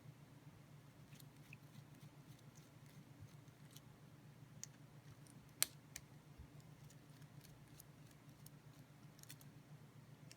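Faint, scattered clicks and light taps of an OTF knife and its metal parts being handled, with one sharper click about halfway through, over a low steady hum.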